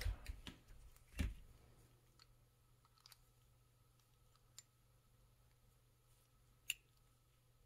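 Faint, scattered clicks and taps of a wrench and small metal motor parts being handled while a DC gear motor is unbolted, with one louder knock about a second in and a sharp click near the end.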